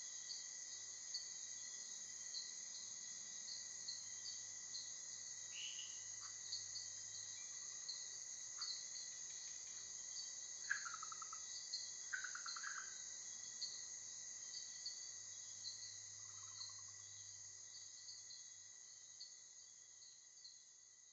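Night rainforest chorus at a breeding pond: a steady high insect drone and rapid chirping, with a few stuttering chack calls of red-eyed tree frogs (Agalychnis callidryas) standing out. The chorus fades out near the end.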